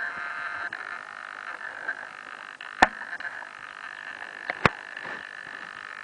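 A frog calling, one long continuous buzzing trill that runs on without a break. A few sharp clicks stand out above it, about three seconds in and twice more a couple of seconds later.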